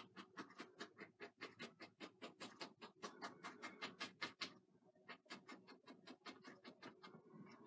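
Faint, quick, regular taps of an oil-paint brush dabbing onto canvas, about five or six a second, with a short pause about two-thirds of the way through.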